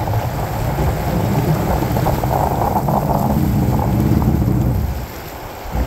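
Mini jetboat's two-cylinder two-stroke engine running under power, with wind buffeting the microphone. The level drops off about five seconds in.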